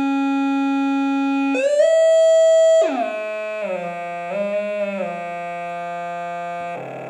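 Electronic test tones, set from a phone, play through a small speaker under a balloon membrane: one steady, buzzy tone that slides up and holds higher about a second and a half in. It drops and wavers from about three seconds in, then settles near the end into a lower mix of overlapping frequencies.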